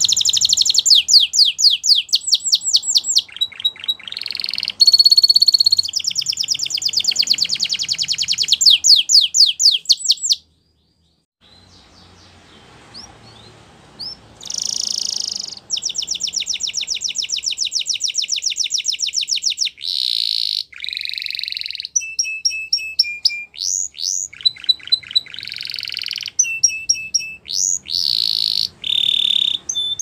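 Spanish Timbrado canary singing: long runs of fast, even trills and rolls, with a pause of about a second near the middle, then more trills mixed with short held notes.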